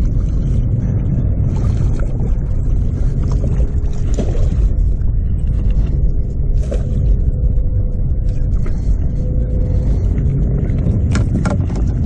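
Steady low rumble of wind and river water around a small fishing boat, with a few short splashes and knocks as a hooked blue catfish thrashes at the surface beside the hull.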